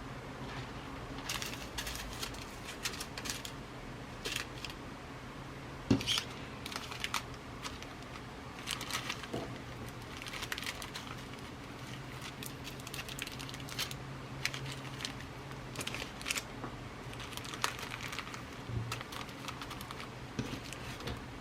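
Glass seed beads and their packets being rummaged through by hand: irregular rustling with light clicks, one sharper click about six seconds in, over a steady low hum.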